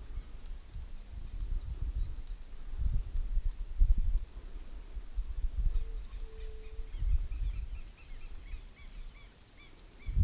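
Outdoor creek ambience: uneven low rumbling of wind on the microphone, under a steady high insect drone. Around six seconds a bird gives a short honk-like call, followed by a run of quick chirps, and a low thump comes near the end.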